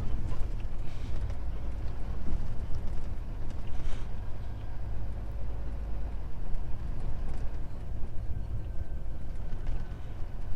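Heavy truck under way, heard from inside the cab: the diesel engine's steady low drone mixed with road and tyre noise.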